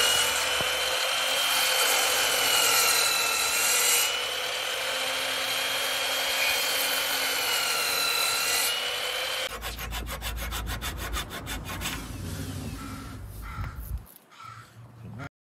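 Sliding compound miter saw running with a high steady motor whine as its blade cuts a notch in a Sapele mahogany threshold. The whine stops about nine and a half seconds in, followed by a fast clattering rattle and quieter handling of the cut piece.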